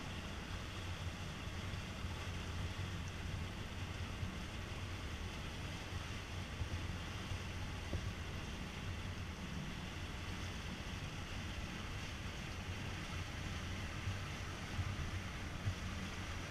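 Boat engine running steadily at low speed with a constant low hum, over the hiss of water washing along the hull and light wind on the microphone.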